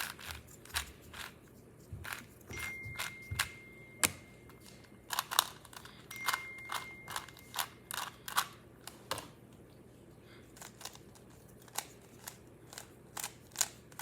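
Irregular sharp plastic clicks and clacks of a Rubik's cube and a speedcubing timer being handled. A thin, steady electronic tone sounds twice, each time for about a second and a half.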